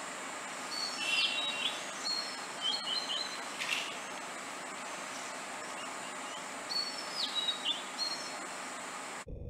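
Birds chirping in three short groups of quick, clipped high notes over a steady outdoor hiss. The hiss cuts off abruptly near the end.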